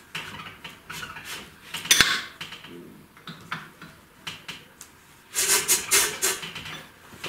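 Metal engine parts and tools clinking and clattering on a workbench. There is a sharp metallic knock about two seconds in, and a short burst of scraping and rattling a little past halfway.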